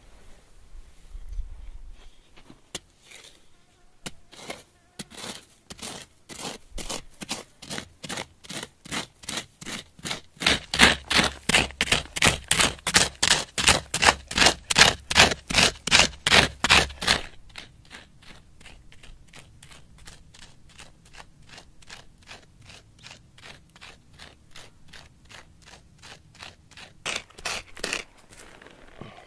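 Repeated scraping strokes of hand-digging into dry, gravelly soil, about three a second, loosening dirt for adobe bricks. The strokes grow louder about ten seconds in, turn softer after about seventeen seconds, and a few louder strokes come near the end.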